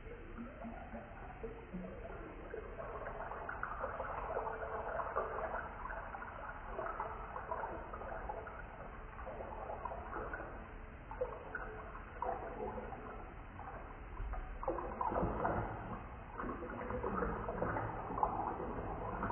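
Water pouring in a thin stream into a glass bowl that is partly full, splashing and bubbling continuously. It sounds dull and low, with no high tones, and grows fuller and louder about fifteen seconds in.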